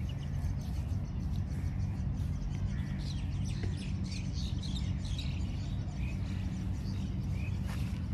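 Birds chirping in short calls, busiest in the middle of the stretch, over a steady low rumble.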